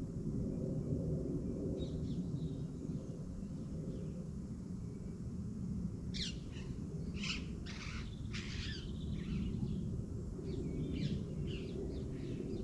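Birds calling: a few faint chirps about two seconds in, then a cluster of sharp, short calls in the middle and more near the end, over a steady low rumble.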